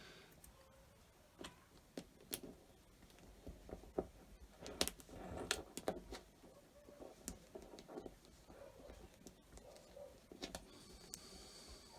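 Small rare earth magnets clicking and tapping as they are handled and fitted together by hand: irregular sharp clicks with light handling rustle, busiest about five seconds in.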